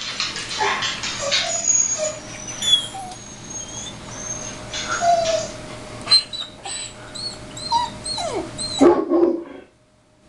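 Recorded dog whimpering and yelping played as a sound effect through computer speakers, ending in a run of short, high yelps about two a second, then cutting off abruptly about nine and a half seconds in.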